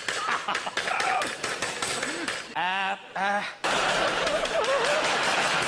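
A man making comic nonsense vocal noises: short fragments, then a warbling, quavering cry about two and a half seconds in, followed by a long hissing, noisy stretch.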